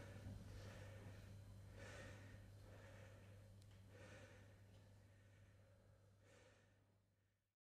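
Faint breathing, a series of breaths one to two seconds apart, over a low steady hum. It fades down and cuts to silence near the end.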